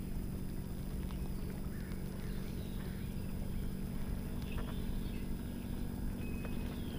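Steady low hum under a rumble of wind on the microphone, with a few faint ticks and short chirps.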